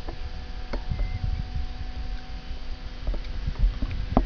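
Low, gusty rumble of wind and handling on a microphone fixed to an RC transmitter, with scattered clicks and knocks from the transmitter being worked, the loudest near the end, over a faint steady hum.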